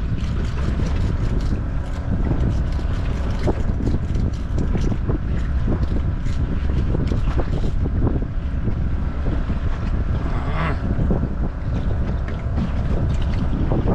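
Wind buffeting the microphone over a boat's steady low rumble at sea, with many irregular small clicks and knocks throughout and a short hiss about ten and a half seconds in.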